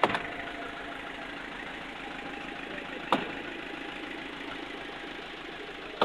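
Tractor engine running steadily at idle, its low firing rhythm even throughout. Two sharp clicks stand out, one right at the start and one about three seconds in.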